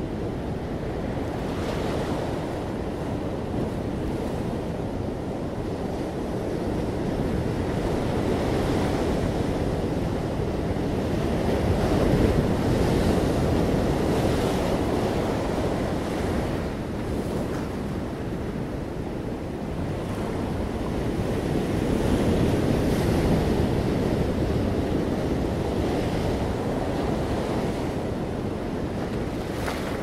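Ocean surf breaking among rocks and washing up a sandy beach: a continuous rush that swells louder twice, near the middle and again about three quarters of the way through.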